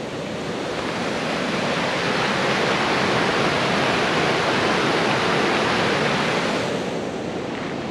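Rushing water of a mountain stream, a steady noisy roar that swells over the first couple of seconds and eases off near the end.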